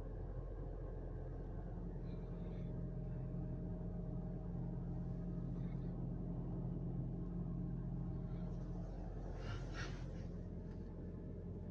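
Toyota Prius hybrid running while parked, heard from inside the cabin as a steady low hum that grows stronger about two seconds in and eases near the end. A brief rustle comes near the end.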